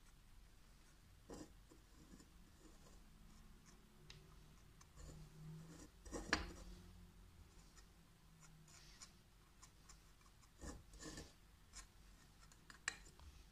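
Faint scraping and rubbing of a thin metal tool worked against a plastic cup around the rod electrodes, with a sharp click about six seconds in and a few soft knocks near eleven seconds.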